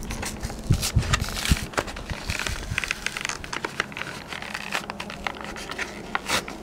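Clear plastic blister pack on a cardboard backing card crinkling and crackling as it is handled, with a few low thumps about a second in.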